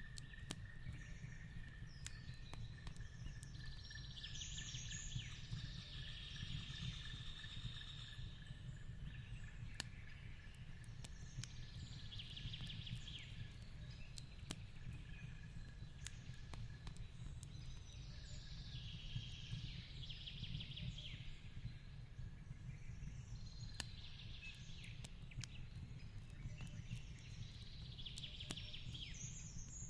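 Fireplace and forest ambience: a wood fire crackling in scattered sharp clicks over a steady low rumble, with short high bird phrases returning about every eight seconds. A thin steady high tone runs underneath and fades out by the middle.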